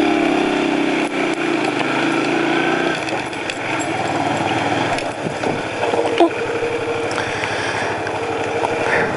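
Hyosung Comet 250 motorcycle's V-twin engine running at low, fairly steady revs on a downhill ride. The note changes about three seconds in to a rougher run of rapid, even firing pulses.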